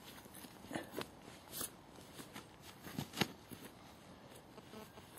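Dry leaf litter and a nylon tarp rustling and crackling as the tarp's edge is handled, with a few short, sharp crackles, the loudest about three seconds in.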